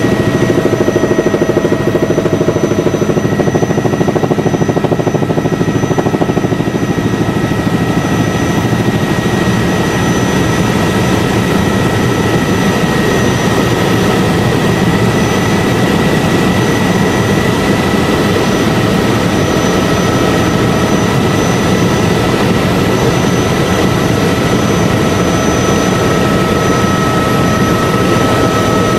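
Helicopter in flight heard from inside the cabin: engine and rotor running steadily and loud, with a few constant high whines above the dense rumble.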